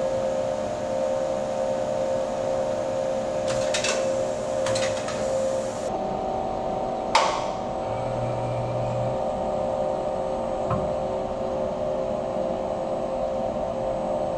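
Steady hum of automated battery-cell production machinery, with several fixed tones, broken by a few sharp mechanical clicks, the loudest about seven seconds in, and a short low buzz about a second later.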